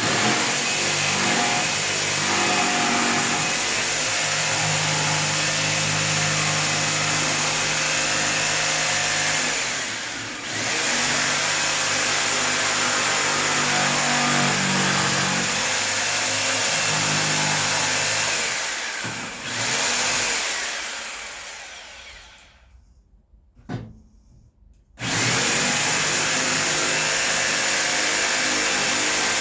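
Electric power tool working wood, running in long stretches. It cuts out briefly about a third of the way in, then restarts. Past the middle it winds down slowly and goes quiet for a couple of seconds, then starts up again near the end.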